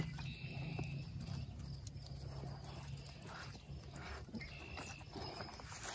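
Faint handling of a garden hose being screwed onto a plastic Miracle-Gro hose-end feeder: a sharp click at the start, then light clicks and scraping of the metal coupling on the threads.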